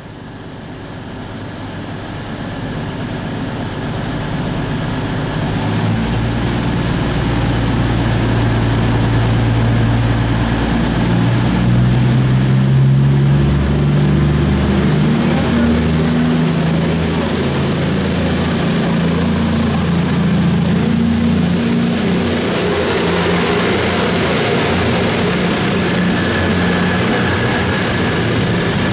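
A diesel train approaching through the station, growing louder over the first ten seconds and then holding steady, its engines humming low with notes that step up and down in pitch.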